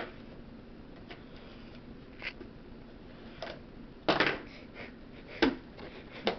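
Hands working open a cardboard trading-card hobby box: a few short scratchy rustles of cardboard and wrapper, the longest and loudest about four seconds in, then a sharp knock on the box.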